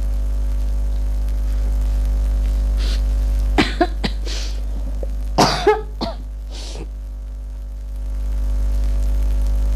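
A woman coughing into a tissue held to her mouth, in two clusters of short coughs, a little under four seconds in and again about five and a half seconds in, over a steady low electrical hum.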